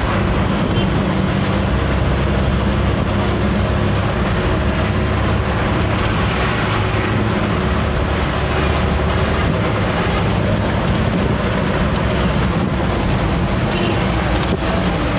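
Truck's engine and road noise heard from inside the cab while driving at speed: a steady, loud drone with a deep rumble.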